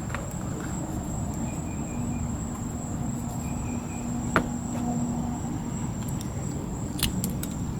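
Steady low background rumble with a thin, steady high whine. There is one sharp click about four and a half seconds in and a few light clicks near the end.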